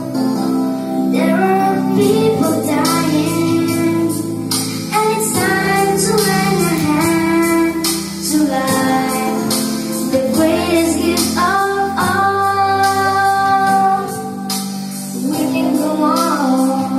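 A group of young children singing an action song together over instrumental accompaniment with a steady beat.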